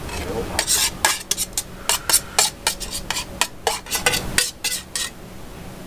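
A utensil scraping and clinking against a metal camp-cookset pan as taco-rice meat is scooped out onto a plate: a quick, irregular run of a dozen or so clinks and scrapes that stops about five seconds in.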